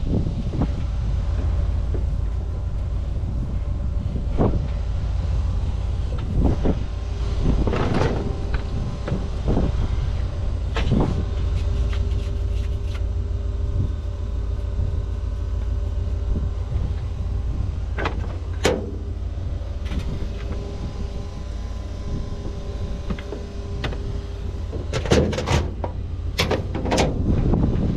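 An engine running at a steady low rumble, with scattered metallic clanks and knocks, and a steady hum that sets in about a quarter of the way through and stops near the end.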